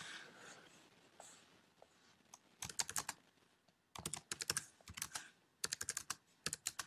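Computer keyboard being typed on: after a quiet couple of seconds, quick runs of keystrokes begin about two and a half seconds in and carry on in bursts, several keys at a time.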